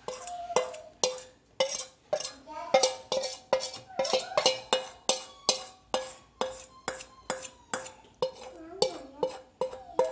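Metal spoon repeatedly scraping and tapping the inside of a metal mixing bowl to get the last melted chocolate out, about two to three clinks a second, each leaving the bowl ringing briefly.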